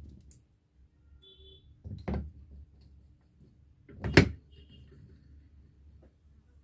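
Sharp knocks of hard objects set down or struck: one at the start, another about two seconds in, and the loudest about four seconds in, with faint clinks between.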